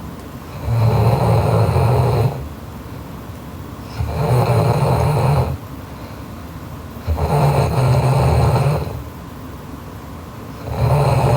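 A sleeping woman snoring loudly, with low buzzing snores about a second and a half long, one every three and a half seconds or so. There are four in all, the last starting near the end.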